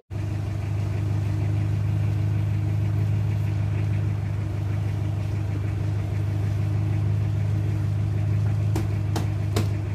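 A steady low drone of a running engine, even throughout, with a few faint clicks near the end.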